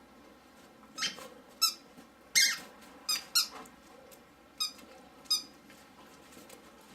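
Squeaky dog toy squeaking about seven times in short, high-pitched squeaks, unevenly spaced.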